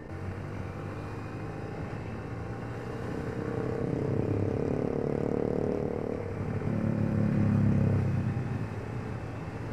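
Yamaha Vixion R 155 VVA's single-cylinder engine accelerating under riding. It grows louder twice, with a short dip between them about six seconds in, and the loudest stretch comes around seven to eight seconds in before it eases off.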